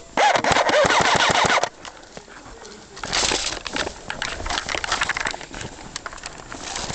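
Airsoft AK rifle firing a rapid full-auto burst lasting about a second and a half, followed by quieter irregular rustling and clatter.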